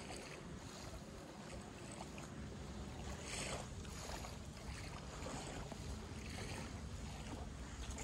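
Wind buffeting the microphone as a steady low rumble, with a brief soft rustle about three seconds in.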